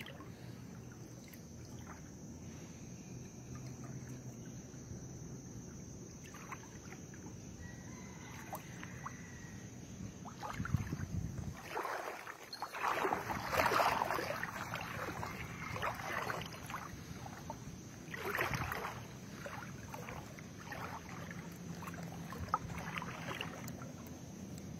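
Water sloshing and splashing as a person wades through a canal, pulling a surfboard. The splashing comes in irregular surges, loudest in the middle stretch.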